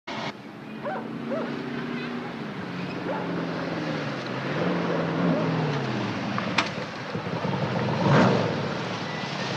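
Ford Gran Torino's engine running as the car drives up an alley toward the listener, its note rising and falling and growing louder as it nears, loudest about eight seconds in.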